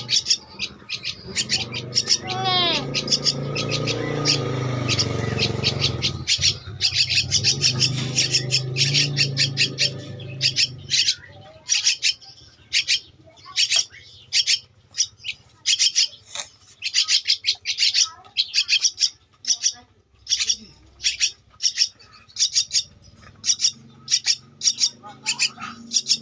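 Two-week-old Javan myna chick giving short, rapid, repeated high begging calls, the typical food-begging of a hand-reared nestling. A low steady hum sits under the calls for the first half and fades out about eleven seconds in.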